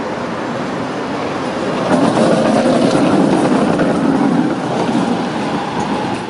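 Tatra T3 tram running past on its rails: a steady rumble of wheels and running gear that swells in the middle as the car goes by, then cuts off sharply.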